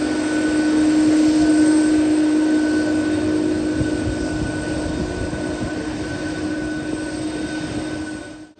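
Jet engines of an Airbus Beluga (A300-600ST) at low taxi thrust: a steady rushing noise with a held low tone and a fainter higher tone. It fades out near the end.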